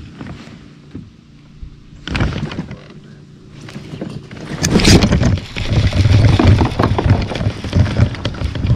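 Baitcasting reel being cranked hard, with rod and hand knocks close to the microphone, while a hooked fish is fought from a kayak. This starts about four to five seconds in and is loudest from then on, after a short rustle about two seconds in.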